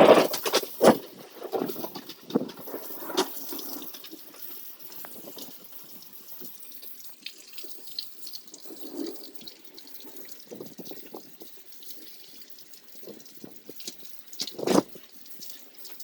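Rain falling, with irregular close drips and a crunchy crackling noise on the phone's recording. The uploader thinks the crackle comes from the phone itself rather than from the storm. The crackle is loudest at the very start and again near the end.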